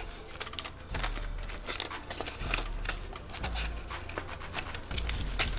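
Paper banknote and binder envelope being handled: a run of short rustles, crinkles and small clicks as cash is stuffed into a ring-bound cash binder and the binder is closed.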